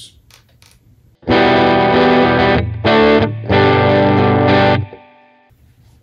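Harley Benton SC-200 electric guitar with humbucker pickups, played through GarageBand's Brit and Clean amp model: three strummed chords, the middle one short, the last ringing briefly before it is cut off. Meant as a clean tone, it comes out a little distorted because the audio interface's input gain is set too high.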